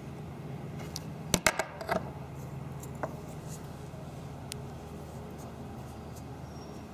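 A knife blade prying a lead bullet slug out of a split wooden 2x4 stud: a quick cluster of sharp clicks and scrapes about a second and a half in, then a few faint ticks. A steady low hum runs underneath.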